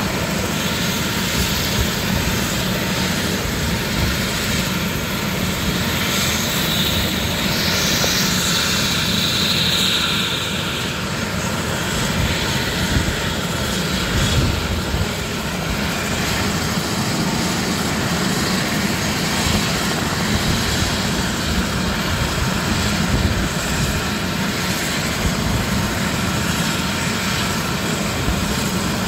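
Light turbine helicopter running on the ground before takeoff: the engine runs with a steady whine and the main rotor turns at ground idle.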